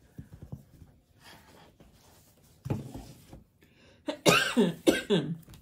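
A woman coughing: one cough about halfway through, then three louder coughs in quick succession near the end.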